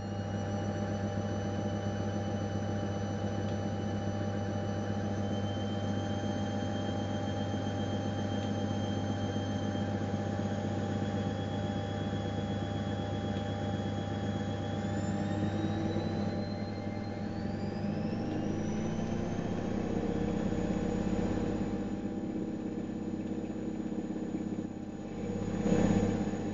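AEG Öko-Lavamat 693 front-loading washing machine running on a 95 °C wash, a steady hum under a motor whine that climbs slowly and then rises quickly in the middle as the drum speeds up. A deeper rumble joins in the second half, with a short louder surge near the end.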